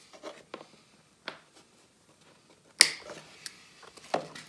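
Thick tie wire being worked to hold a motorbike battery in place: a few short sharp clicks and taps of wire and tool, the loudest almost three seconds in and another about four seconds in.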